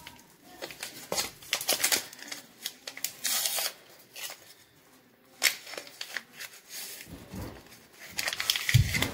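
A small foil-lined Sazón seasoning packet crinkling and tearing in the hands as it is torn open and emptied, in short, irregular bursts.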